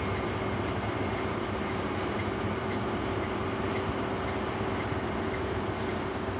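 Class 43 HST power car's diesel engine running with a steady hum as the train moves slowly away, its coaches rolling past on the rails.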